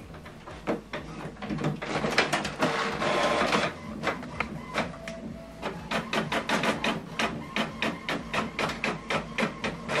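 HP Envy Inspire 7220e inkjet printer printing a test page: the paper feed and print-head carriage running in a series of whirs and clicks, with a run of even ticks, about four a second, in the second half.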